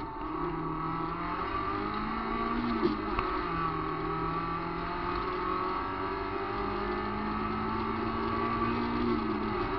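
VW Gol rally car engine heard from inside the cabin, pulling hard through the gears: the revs climb, drop at an upshift about three seconds in, climb again for several seconds and drop at another shift near the end. A sharp knock comes just before the first shift, over steady tyre noise on gravel.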